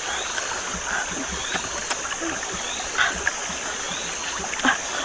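Steady running water, like a stream, with a short rising chirp repeating about once a second and a few sharp clicks.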